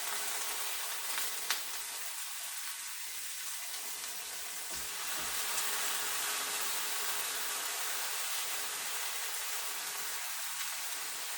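Chicken drumstick pieces sizzling steadily as they fry in hot vegetable oil in a pan, with a single sharp click about a second and a half in.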